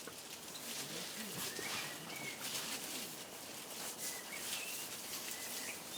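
Short, high bird chirps, several times, over a steady outdoor hiss with scattered faint taps.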